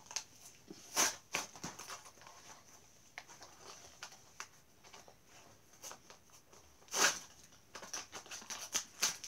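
Plastic blister packaging of a Hot Wheels card crackling and tearing in a child's hands as the toy car is worked out. Irregular crackles, the loudest about a second in and about seven seconds in, with a quick run of them near the end.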